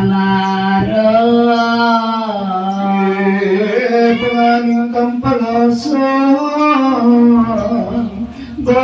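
Singing voice carrying a slow melody of long held notes.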